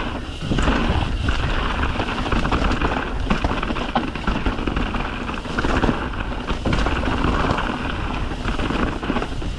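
Mountain bike riding down a rocky dirt trail: wind buffeting the microphone over the tyres and the rattle of the bike, with frequent small knocks.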